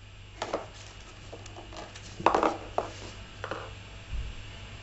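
Cardboard box scraping and rustling as a cat shifts and turns inside it: a few short scratchy sounds, the loudest about two seconds in.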